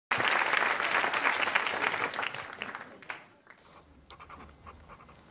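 Applause that starts at full loudness and dies away over about three seconds. After it come a few faint scratches, like a pen writing on notebook paper.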